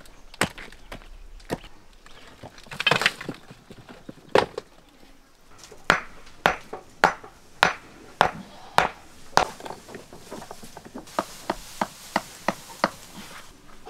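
Sharp hand-tool blows on stone as a dry stone wall is laid, knocking stones into place and trimming them: single strikes, irregular at first, then about one to two a second, with a quicker run of strikes near the end. A rough scrape of stone on stone about three seconds in.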